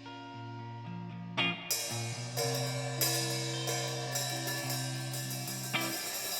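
Instrumental rock band playing: held guitar and bass notes, with cymbal crashes and hi-hat coming in about a second and a half in.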